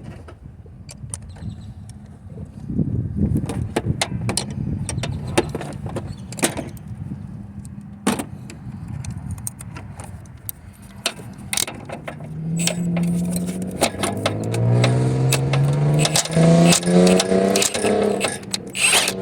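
Metal clinks and clicks of hand tools on the alternator's mounting bolts. In the second half a motor vehicle's engine runs, its pitch rising and falling.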